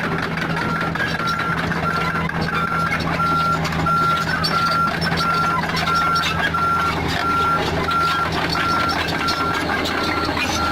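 Backup alarm beeping at an even pace, about one and a half beeps a second, over the steady running of a diesel engine on heavy machinery.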